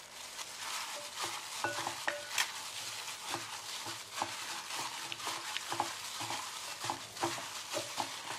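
Raw chicken drumsticks being squeezed and kneaded by a plastic-gloved hand in a bowl, working the fish sauce and pepper marinade into the meat: irregular wet squelches and smacks, several a second.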